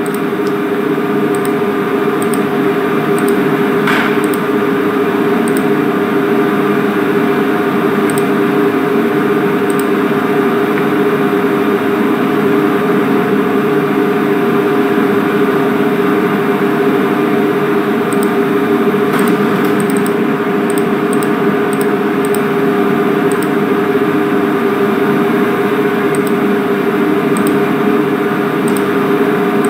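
Steady electrical or machine hum with a strong low tone, under faint scattered clicks of a computer keyboard and mouse, one a little louder about four seconds in.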